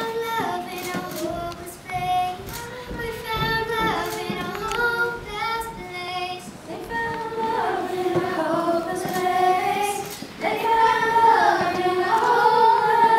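Children singing a slow melody with long held notes.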